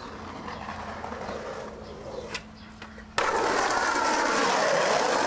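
Skateboard wheels rolling over rough, cracked asphalt, starting abruptly and loudly about three seconds in. Before that, a few light knocks over a quieter background.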